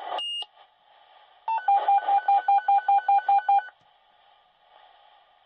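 Fire department dispatch pager alerting: a brief high tone, then about two seconds of rapid electronic beeps, roughly five a second, over faint radio hiss.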